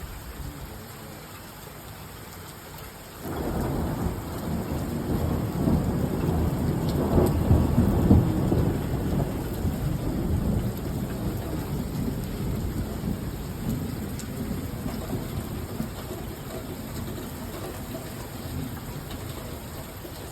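Heavy rain falling steadily, then about three seconds in a loud thunderclap breaks in and rolls on as a deep rumble, loudest around eight seconds in, then slowly dying away under the rain.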